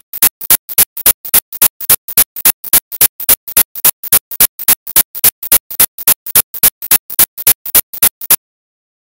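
Loud electronic sound effect: an even train of short, harsh, hissy noise pulses, about three and a half a second, that cuts off suddenly near the end.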